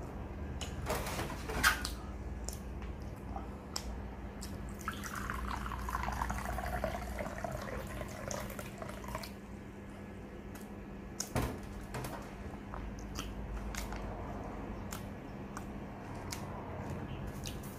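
Water poured from a stainless-steel electric kettle into a glass bowl, a pouring sound a few seconds long whose pitch slides downward. Two sharp clicks or knocks, about 1.5 seconds in and about 11 seconds in, with smaller ticks between them.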